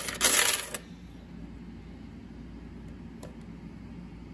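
Coins clinking and rattling as a hand stirs them in the metal bucket of a slot machine's coin hopper. This stops within the first second, leaving a quiet room with one faint click about three seconds in.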